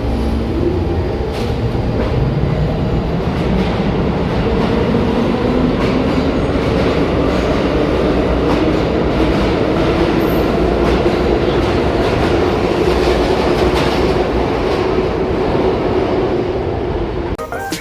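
New York City subway train accelerating away from the platform: the motors' whine rises steadily in pitch over the rumble and clatter of the wheels on the rails.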